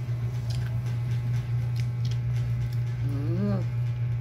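A steady low hum, with faint small clicks and, about three seconds in, one short hummed voice sound that rises and falls in pitch.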